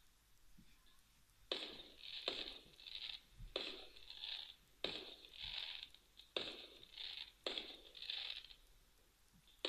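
Fireworks bangs played back through a phone's small speaker: a run of sharp reports starting about a second and a half in, one every second or so, each trailing off in crackle. They sound thin and tinny, with no low end.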